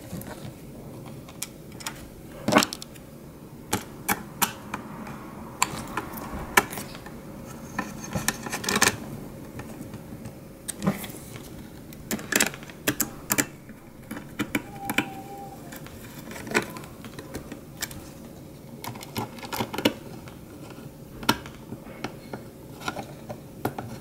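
Irregular clicks and taps of a small Phillips screwdriver and screws against the hard plastic underside of an HP Stream Mini desktop as the screws are driven back in.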